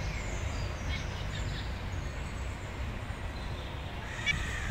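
Birds chirping faintly, with a few short high calls in the first second or so, over a steady low rumble of outdoor background noise. A single sharp click comes near the end.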